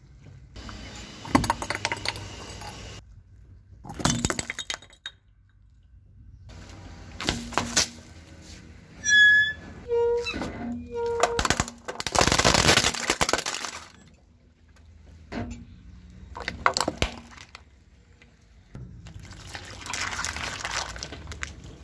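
A car tyre rolling over and crushing objects one after another: plastic cracking and crunching and liquid squirting out, in separate bursts a few seconds apart. Around ten seconds in come a few short electronic beeps, then the loudest and longest crunch.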